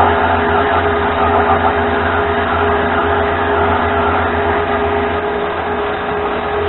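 Mini lathe running and turning a brass workpiece: steady motor and gear hum with a held whine over the noise of the cut. The low hum eases slightly about five seconds in.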